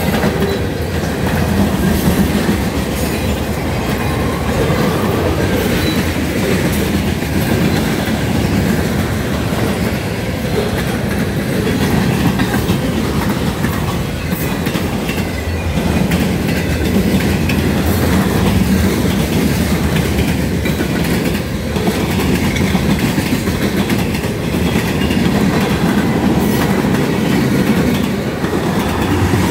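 Cars of a mixed freight train rolling past: a steady loud rumble, with the wheels clicking over the rail joints.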